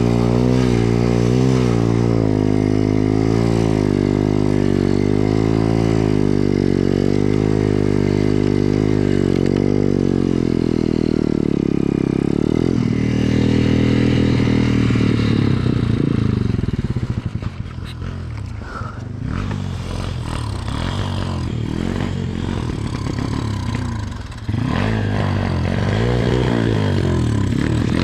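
BSE pit bike's single-cylinder engine working hard in deep snow, revs rising and falling. About halfway through, the engine note drops and runs lower and uneven for several seconds, then picks up again sharply near the end.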